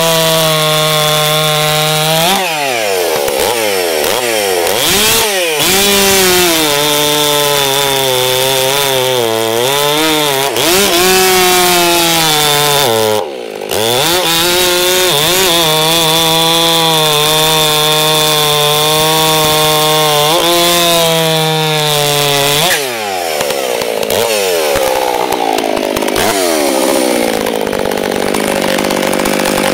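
Ported Stihl 661 two-stroke chainsaw with a 28-inch bar and full-comp chain, running at full throttle and cutting through a large log. The engine pitch swings up and down repeatedly as the saw works through the cut and dips briefly about halfway. Near the end it settles at a lower steady speed.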